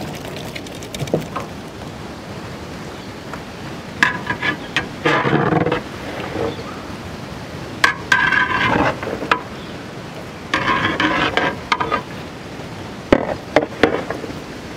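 A steel plate scraping and clattering against a large metal pot as chopped muskmelon pieces are slid off it into the pot, in several bursts with a couple of sharp knocks.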